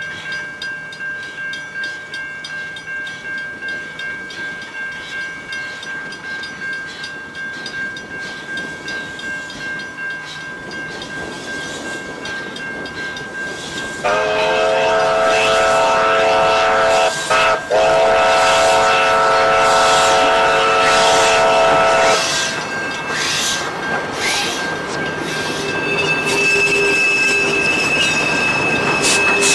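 Steam whistle of the Beyer, Peacock-built W-class locomotive W22, blown in one long blast lasting about eight seconds from roughly halfway through, with two short breaks in it. Before and after the whistle, the approaching steam train runs with a steady rhythmic beat that grows louder as it nears.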